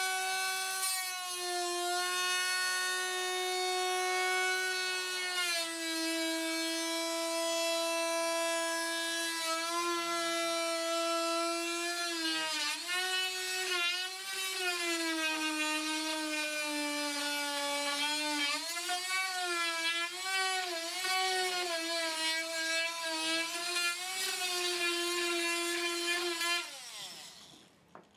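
Corded DeWalt oscillating multi-tool with a straight blade cutting through wood flooring along a metal template: a steady high-pitched buzz whose pitch sags as the blade is pushed into the cut. Near the end it is switched off and winds down, its pitch sliding down.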